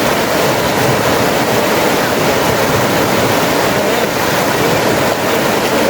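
Steady rush of flowing river water, a loud, even noise with no break.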